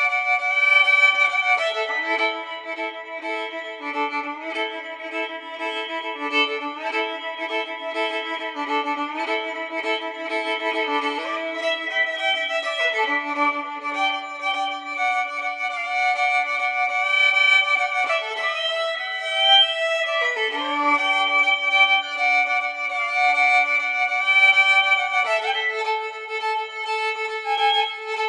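Violin music: long bowed notes, often two or three sounding together, changing pitch every few seconds, with a wavering slide between notes a little over two-thirds of the way through.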